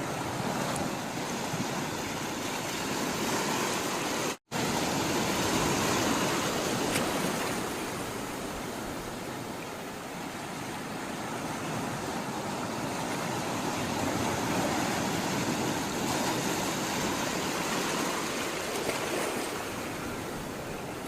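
Sea water rushing and washing in a steady roar that slowly swells and eases. The sound drops out completely for a moment about four seconds in.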